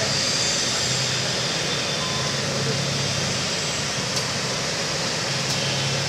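Steady roar of city traffic heard from high above the streets, with a low engine-like hum that fades in and out.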